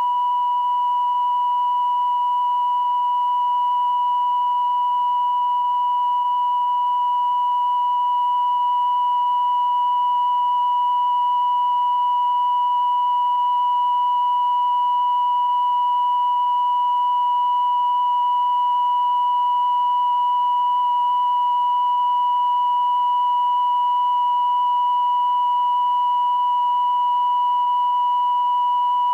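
Steady 1 kHz line-up test tone accompanying colour bars at the head of a videotape, held at one unchanging pitch and level; it is the reference signal for setting audio levels.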